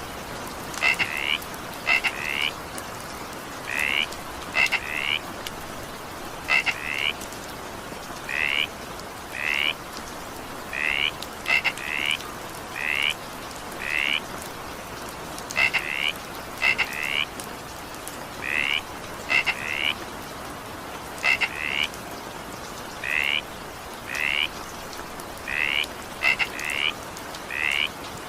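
Frogs calling over steady rain: short rising notes, single or in quick runs of two or three, repeating about once a second against an even rain hiss.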